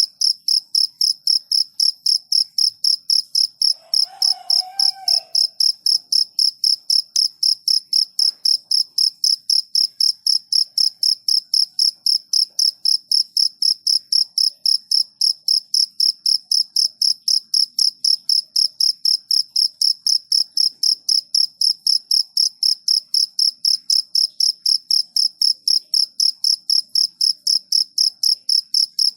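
A cricket chirping steadily and evenly, about three short high-pitched chirps a second.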